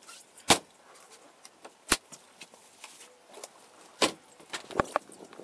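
A run of sharp, separate knocks and clatters, five loud ones with lighter clicks between, as gear is handled and passed across on a boat.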